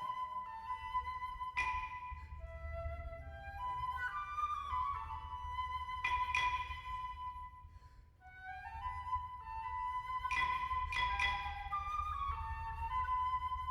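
Live wind band music: a high, flute-like woodwind melody of rising runs and held notes, punctuated a few times by sharp struck percussion accents that ring on.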